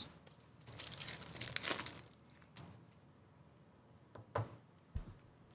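Hands handling trading cards and card packs on a table: a crinkling rustle from about one to two seconds in, then two light taps near the end.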